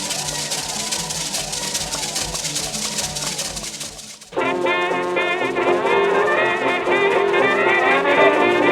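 Music: a piece with a quick shaker rattle fades out about four seconds in, and a different, louder piece cuts in straight after.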